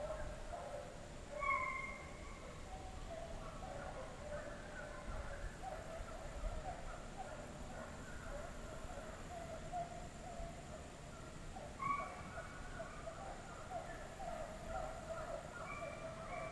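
A pack of deer hounds baying in the distance during a chase: many overlapping cries, with a few sharper, higher yelps among them.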